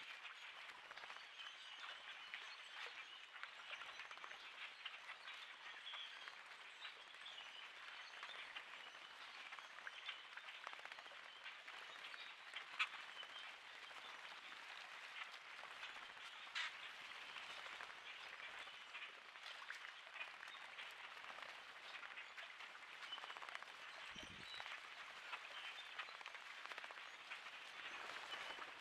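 Large flock of common grackles drinking and bathing: a faint, dense, steady crackle of chattering calls and splashing, with a few sharper clicks standing out.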